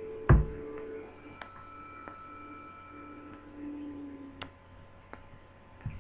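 Laptop parts and tools being handled on a workbench during reassembly. There is one sharp knock just after the start, then a few light clicks, over a steady electrical hum.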